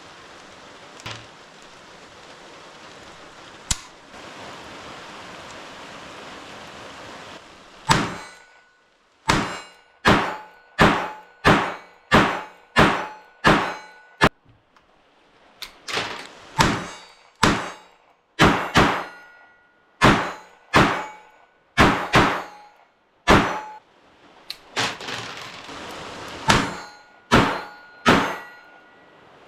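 Steady rain falling, then a .22 LR H&R 999 top-break revolver firing in rapid strings, a shot about every three-quarters of a second, with the rain going on behind. There is a short pause partway through, and a longer stretch of rain alone before the firing starts again near the end.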